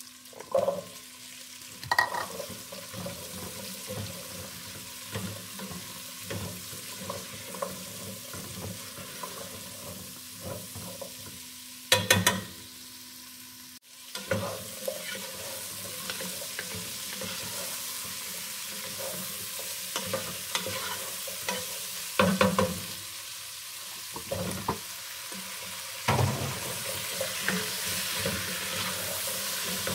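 Vegetables frying and sizzling in oil in a stockpot while a wooden spoon stirs them, with many small scrapes and clicks. Several loud clatters stand out, the loudest about 12 and 22 seconds in, as the spoon knocks the pot and vegetable pieces drop in.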